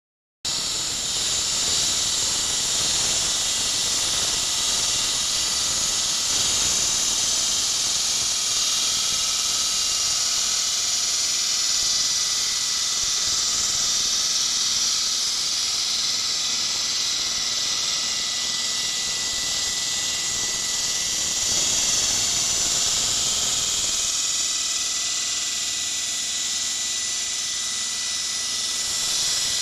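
Husqvarna WS 220 wall saw spinning its diamond blade through a concrete wall under load, a continuous loud hissing grind with a thin, steady high whine. The saw is working at about 40% load.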